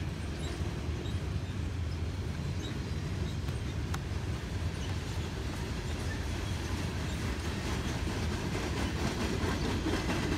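Freight train cars rolling past on the track: a steady rumble of steel wheels on rail.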